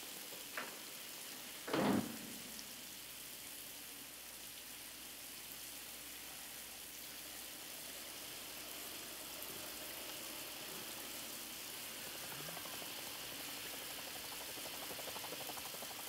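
Shower water spraying steadily, with one thump about two seconds in.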